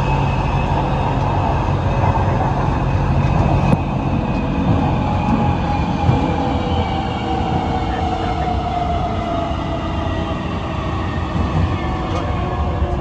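Siemens A1 metro train running through a tunnel, heard from inside the car: steady wheel and tunnel rumble under the traction motors' whine, which falls slowly in pitch as the train slows. A single clack about four seconds in.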